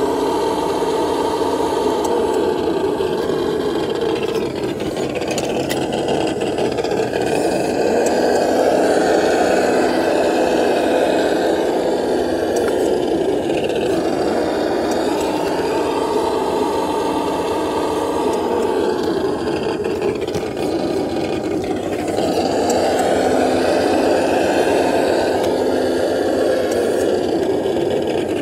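Traxxas TRX-4 RC crawler's electric motor and geared drivetrain whirring under throttle, its pitch and level rising and falling every few seconds.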